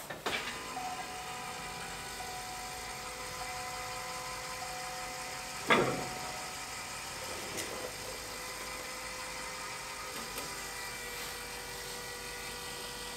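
AirDog electric fuel lift pump on a Duramax diesel running with the key on and the engine off, priming the fuel system: a steady, high whine. A single sharp knock comes about six seconds in.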